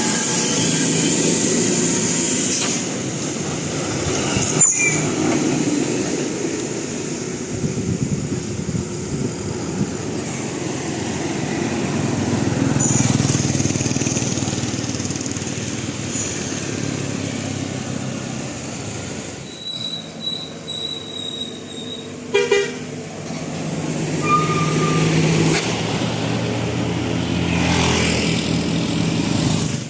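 Buses and other traffic passing close by on a road, engines and tyres swelling and fading. A short horn toot sounds about two-thirds of the way through.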